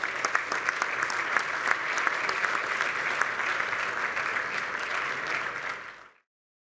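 Audience applauding, a dense spread of many hand claps that fades out quickly about six seconds in.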